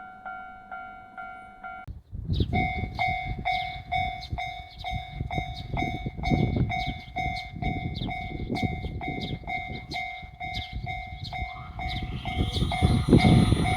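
Japanese railroad crossing alarm ringing its steady rapid "kan-kan" strokes, about three a second. Under it, a passing train rumbles, loudest near the end.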